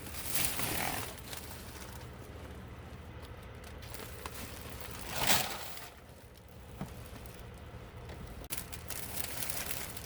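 Plastic bags and packaging rustling and crinkling as they are opened and rummaged through, in bursts with the loudest about five seconds in.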